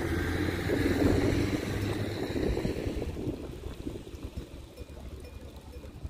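A light van driving off along the road, its engine and tyre noise fading away over the first three seconds.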